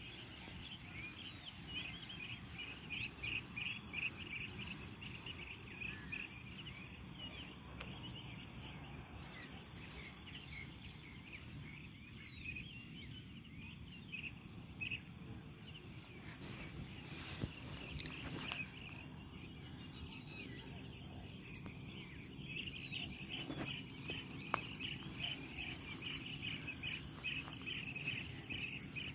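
Insects trilling steadily at a high pitch, with repeated short chirps over the drone and a low rumbling outdoor noise underneath. One brief click sounds about 24 seconds in.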